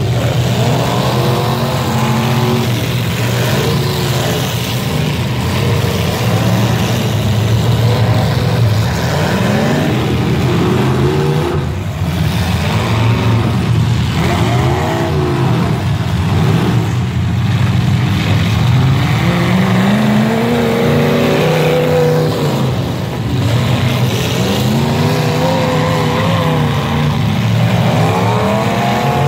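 Several demolition derby car engines revving hard at once, their pitches rising and falling over one another.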